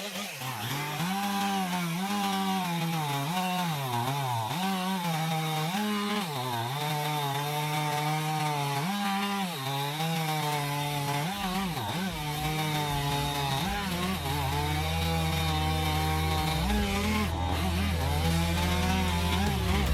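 Two-stroke chainsaw cutting into a log, its engine pitch dipping and recovering again and again as the chain takes and eases off the load, then holding steadier near the end.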